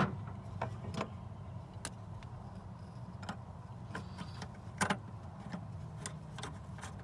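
Scattered light metal clicks and clinks of a socket extension and the fuel-line bolt being worked into the fuel filter, the sharpest at the very start and about two-thirds through, over a steady low hum.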